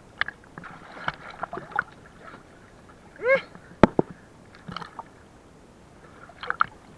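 Sea water splashing and sloshing around a swimmer holding on to the side of a wooden outrigger boat, with scattered small splashes and clicks. A short vocal sound comes a little past three seconds in, then a sharp knock, the loudest sound, just before four seconds.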